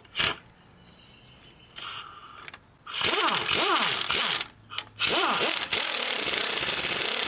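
Handheld power wrench spinning the screw of a brake caliper piston compressor, pushing the caliper piston back. The tool runs in a burst about three seconds in and again from about five seconds on, its pitch rising and falling as it speeds up and slows.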